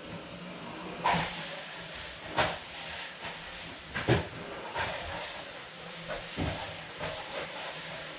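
A steady hiss with a handful of knocks and clatters from objects being handled during house cleaning, the loudest about four seconds in.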